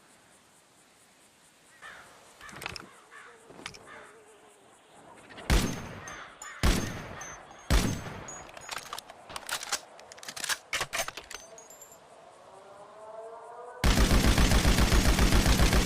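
Machine-gun sound effect: a few scattered single gunshots and short irregular bursts, then, about two seconds before the end, sudden sustained automatic fire, very rapid and even.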